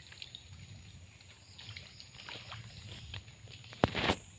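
Faint water sloshing and splashing as people wade chest-deep through a muddy river, over a steady thin high insect drone. Near the end comes a sharp click, then a brief loud rustle.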